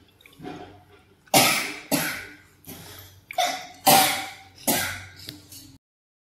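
A man coughing hard, about five loud coughs in a row, that stop abruptly near the end.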